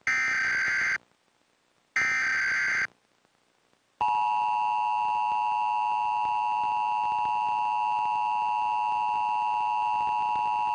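Emergency Alert System broadcast header: two one-second bursts of screeching SAME digital data tones a second apart. About four seconds in, the steady two-tone EAS attention signal starts and holds.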